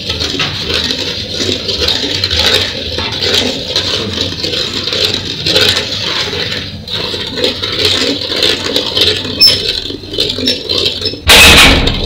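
Wooden spoon stirring and scraping around a metal pot of boiling, bubbling mixture, over a steady low gas-burner roar. A short, loud rush of noise comes near the end.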